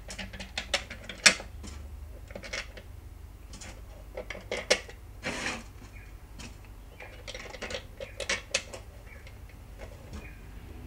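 Screws being driven to close up a plastic battery-adapter housing: irregular clicks, taps and small rattles of the screwdriver and plastic parts, with a short rasping scrape about halfway through.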